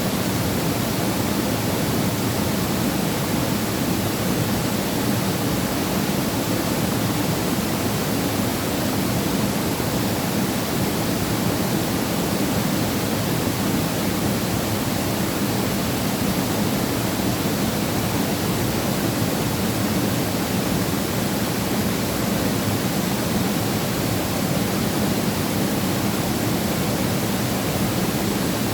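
Waterfall pouring into a mountain valley pool, a steady dense rush of falling water with no change.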